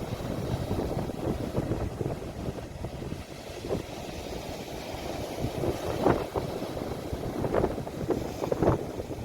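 Sea waves washing, with wind buffeting the phone's microphone and making a steady low rumble; a few short splashes come in the second half.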